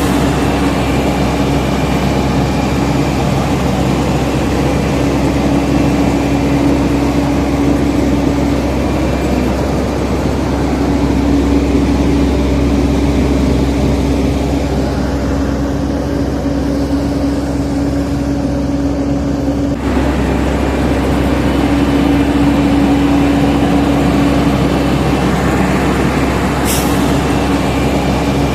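Diesel engine of heavy earthmoving equipment running steadily under work, with a humming tone that swells and fades every few seconds and an abrupt change about two-thirds through.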